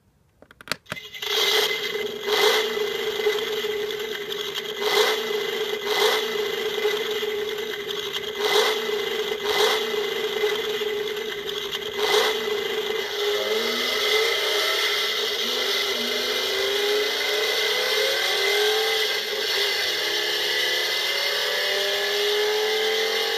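Recorded V8 engine sound played through a novelty engine-sound alarm clock's speaker. It starts with a few clicks, then runs with a series of sharp revs for the first dozen seconds. From about halfway it gives a run of rising pitch sweeps like an engine accelerating through the gears.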